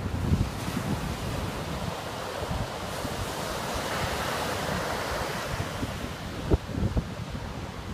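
Ocean surf breaking and washing up the beach, a rushing hiss that swells to a peak midway and then eases, with wind rumbling and buffeting the microphone and a few sharp gusts near the end.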